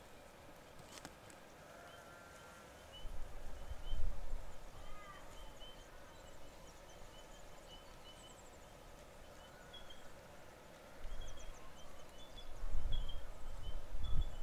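Faint birdsong from the bush: short chirps repeated at one steady pitch, with a few rising and falling whistles and some higher chirps. Bursts of low wind rumble on the microphone come about three seconds in and again from about eleven seconds on, and these are the loudest sound.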